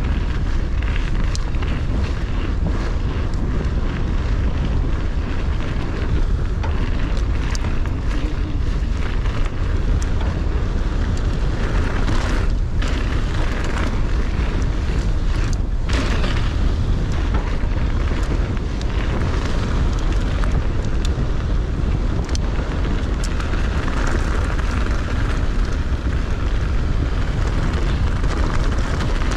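Loud, steady wind buffeting on a chest-mounted GoPro's microphone as a mountain bike descends fast on a rough track, with scattered clicks and rattles from the bike and tyres.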